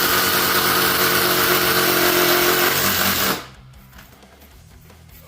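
Electric power tool running loud and steady, then shutting off and winding down about three seconds in.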